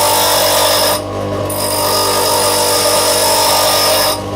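Parkside bench grinder running with a steady hum while a tungsten carving chisel is ground on its wheel: two stretches of grinding hiss, broken briefly about a second in, the second stopping just before the end.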